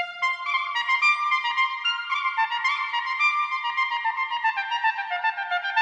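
Trumpet playing a fast run of short, high notes, the example of a high-pitched (agudo) brass instrument.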